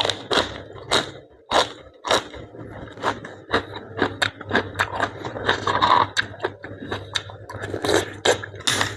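Blanched blood cockles being eaten: irregular sharp clicks and scrapes of the shells being pried open, about two to three a second, with chewing.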